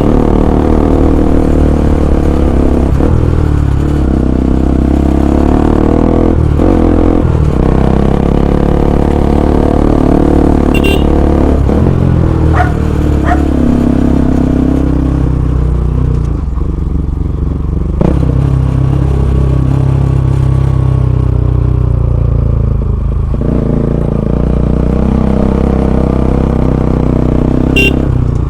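Bajaj Pulsar NS200's single-cylinder engine running through an aftermarket Akrapovic full-system exhaust, loud and steady, its pitch stepping up and down with several brief breaks in between.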